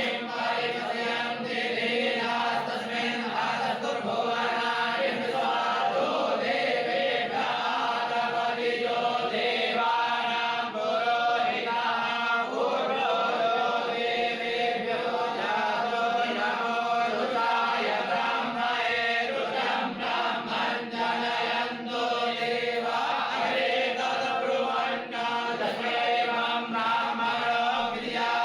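A group of voices chanting Hindu mantras together in unison, steady and unbroken.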